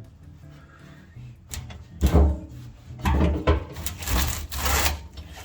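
Rough scraping and rubbing of parts being worked against each other, in several loud strokes starting about two seconds in, with faint music underneath.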